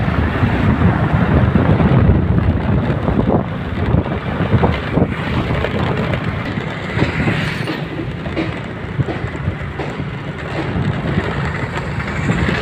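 Motorcycle being ridden along a road: steady engine and road rumble with wind buffeting the microphone, and scattered knocks and rattles over rough, patched road.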